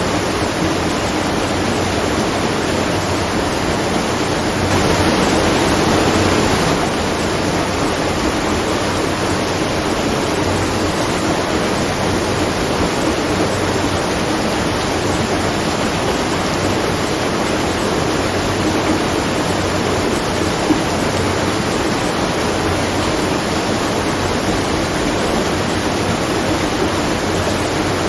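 Water rushing and splashing at a watermill, a steady, even rush that swells briefly about five seconds in.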